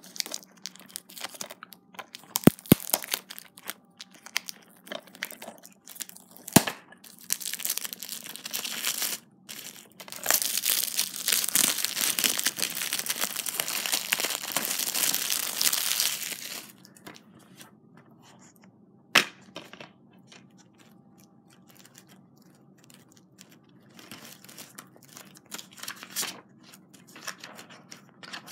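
Plastic wrapping being torn and crumpled off a DVD case, with a dense stretch of loud crinkling from about eight to sixteen seconds in. A few sharp clicks come before it, and quieter rustling and handling follow.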